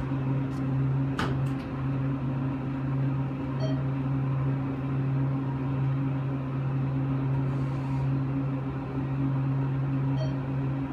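Steady low electrical hum of an elevator car running, with a single sharp click about a second in.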